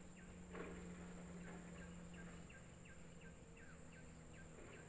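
Faint riverside quiet: a run of short falling chirps from a small calling animal, about three a second, over a steady low hum.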